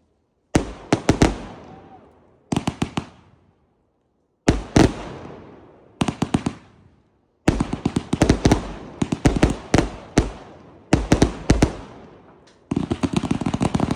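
Multi-shot aerial firework firing: clusters of several sharp bangs every second or two as the shells launch and burst, with a dense run of shots in the second half.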